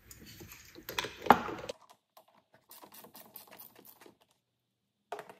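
Small ratchet wrench clicking in quick runs as it loosens the nut on a car battery's positive terminal clamp, with two sharper metal clacks about a second in and a single click near the end.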